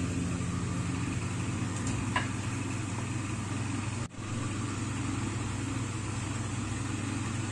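Steady low mechanical hum, like a small motor running, with a brief dropout about four seconds in.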